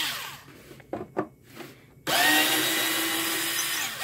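A few knocks from handling, then about two seconds in a Black & Decker cordless drill starts and runs at a steady whine, backing a screw out of the amp cabinet's wood.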